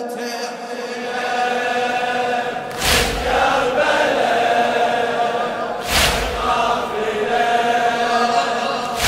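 A crowd of male mourners chanting a latmiya refrain together in long held notes, with a loud collective chest-beating strike three times, about every three seconds.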